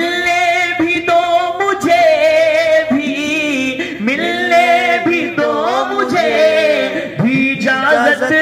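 A man singing a naat, an Urdu devotional song in praise of the Prophet, unaccompanied, in long held notes that bend and slide in pitch.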